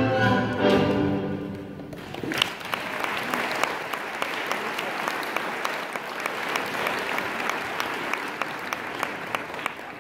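Orchestral music ends about two seconds in, and an audience breaks into applause that runs on with many sharp individual claps.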